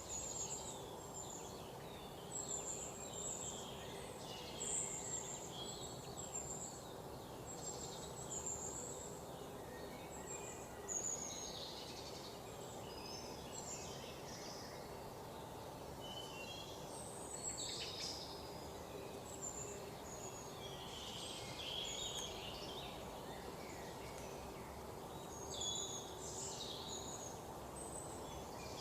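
Many small birds chirping in quick, short high calls, over a steady low background hum.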